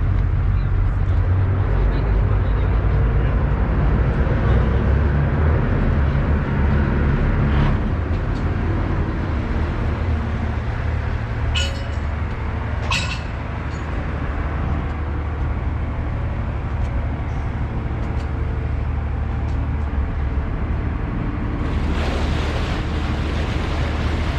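Ferry engine running with a steady low rumble, with two sharp clicks about halfway through and wind buffeting the microphone near the end.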